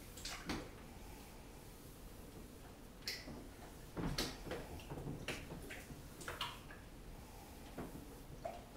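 Faint, irregular soft rustles and small clicks from a hand stroking a sleeping kitten's fur on a cloth-covered lap, loudest about four seconds in.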